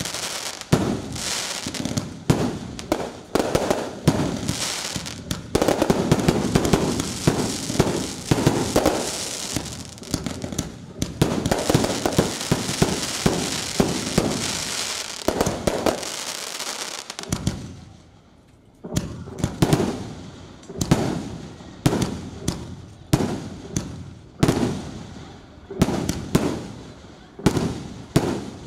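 Aerial fireworks display: a dense, rapid string of bangs and crackling from bursting shells, a short lull about seventeen seconds in, then single bangs about once a second.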